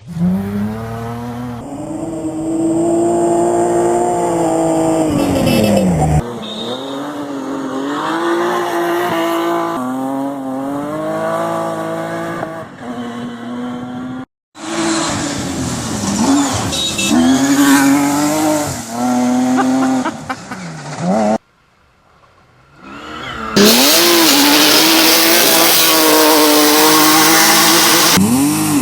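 Rally car engine revving hard, its pitch rising and dropping again and again through gear changes, in several short passes that cut abruptly from one to the next. Over the last few seconds a loud hiss runs along with the engine.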